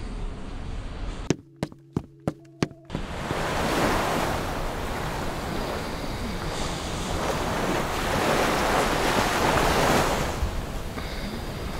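Open-ocean waves and wind, a steady rushing that swells and eases. Just before the rush begins, there is a quick run of about six sharp clicks.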